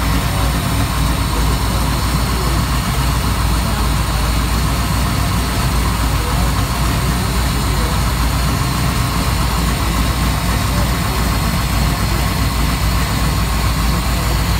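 Supercharged 598 cubic-inch big-block V8 marine engine idling steadily, heard up close with the engine hatch open.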